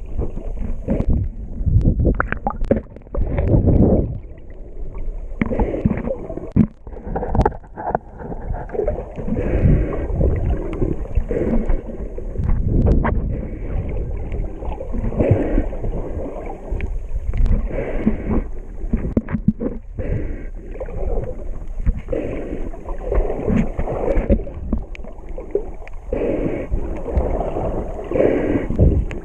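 Muffled underwater sound picked up by a camera held under the sea: water swishing and gurgling around the housing as the swimmer moves, with a few sharp clicks.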